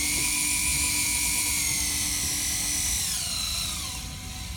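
Electric fishing reel's motor whining as it winds in line, with the bent rod under load. The high whine holds steady, then drops in pitch and dies away about three and a half seconds in.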